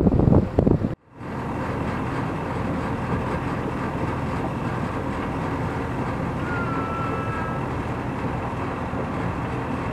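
Wind buffeting the microphone for about a second, then after a cut a sailboat's engine running steadily as the boat motors out of its berth. A brief faint high whistle comes about two-thirds of the way through.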